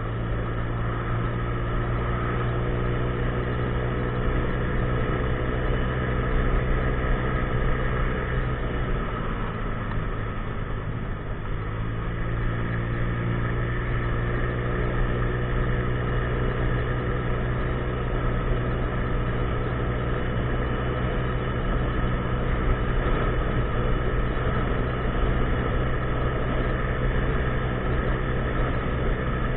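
50cc scooter engine running while riding. Its pitch falls away about eight to eleven seconds in as the scooter slows, then climbs again from about twelve seconds as it speeds back up and holds steady.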